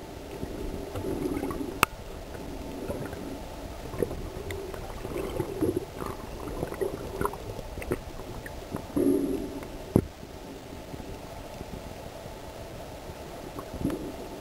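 Muffled underwater sound picked up by a camera held below the surface: low gurgling and rumbling that swells now and then, with a few sharp clicks about two, four, eight and ten seconds in.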